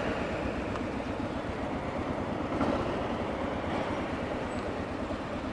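Yamaha XT 600's single-cylinder four-stroke engine running steadily at low revs as the motorcycle rolls slowly, heard as an even low rumble.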